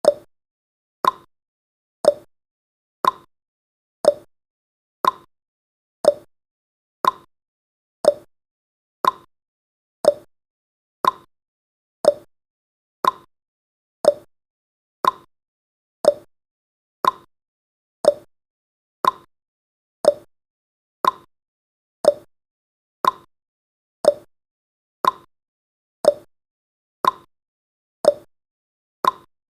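Countdown timer's ticking sound effect: one short, sharp tick every second, steady and evenly spaced.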